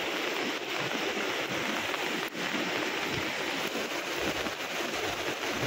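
Steady rain falling on open water, an even hiss of drops striking the surface.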